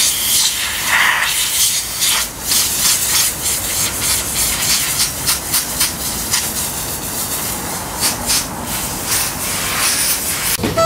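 Compressed-air blow gun hissing in uneven spurts, blasting sand and dust out of an animatronic figure's mechanism. The hiss cuts off just before the end.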